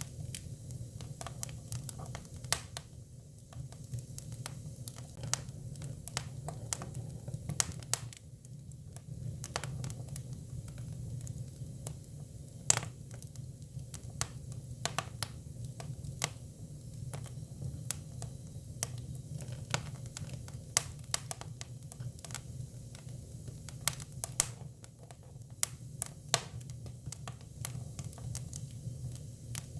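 Hinoki cypress firewood burning, crackling with irregular sharp pops, a few much louder than the rest, over a steady low rumble.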